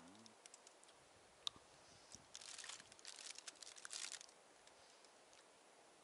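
Chocolate bar wrapper crinkling in the hands as it is opened: a single sharp click about a second and a half in, then about two seconds of crackly rustling.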